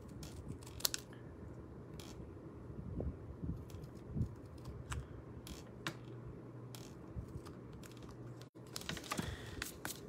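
Small scissors snipping a paper label: a few faint, irregular snips and clicks about once a second.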